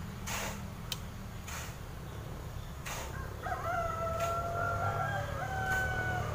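A rooster crowing, one long stepped call of about three seconds beginning about three and a half seconds in. A few short clicks come before it, over a steady low hum.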